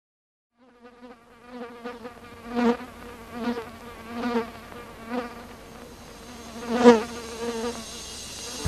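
A fly buzzing in flight, swelling and fading several times as it passes close, loudest about seven seconds in.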